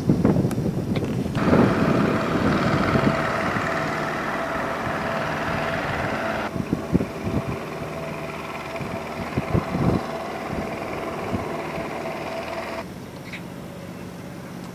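Outdoor background noise: wind on the microphone with a steady hum and a few low thumps, shifting abruptly about a second and a half in, around six seconds in, and near the end.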